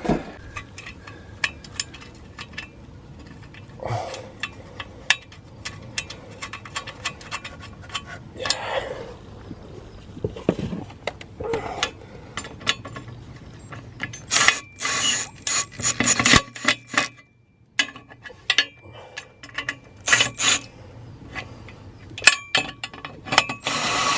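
Hand tools and metal parts clicking, clanking and scraping while an exhaust mid-section is fitted back on, with a few louder rasping spells about two-thirds of the way in and at the end.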